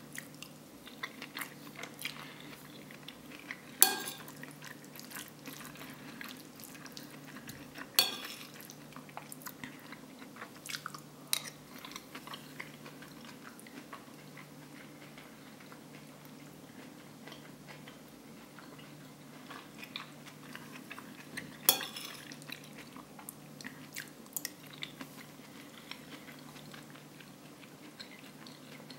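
A metal spoon clinks sharply against a plate three times, well spaced. Between the clinks come soft chewing and small wet mouth clicks from eating rice and vegetable curry, over a faint steady low hum.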